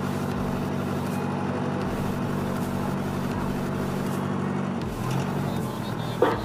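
Diesel engine of a pick-and-carry mobile crane running steadily, its note shifting briefly about five seconds in.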